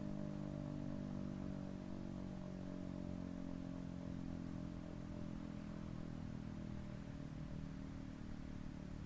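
Federal Signal Thunderbeam RSH-10B electromechanical outdoor warning siren sounding a steady chord that slowly sinks in pitch and fades a little, as it winds down at the end of its alert signal.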